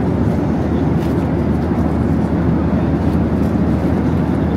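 Steady low roar of a jet airliner's cabin in cruise: engine and airflow noise, even and unbroken.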